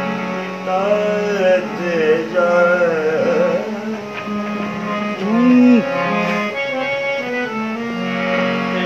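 Harmonium playing steady held notes while a man sings an Urdu song melody, drawing out long ornamented vocal runs that bend and waver in pitch.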